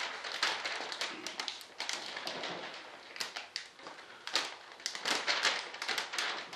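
Plastic vacuum-bagging film crinkling, with irregular crackly taps as hands press and smooth the bag down over a wing layup.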